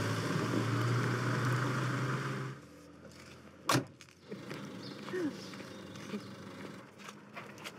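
Steady engine hum of the campsite shuttle vehicle, which stops abruptly about two and a half seconds in. About a second later comes one sharp clunk, then a few small clicks and rattles.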